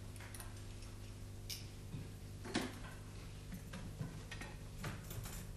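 Scattered light clicks and clinks of small steel surgical instruments being handled and wiped on a workbench, the sharpest about two and a half seconds in, over a steady low electrical hum.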